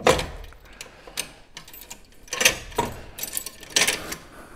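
Matador Bull-Lock 2.0 steel tow-ball lock being worked down over a tow-bar ball: a few scattered metal clicks and light knocks as it is seated, the loudest about two and a half seconds in.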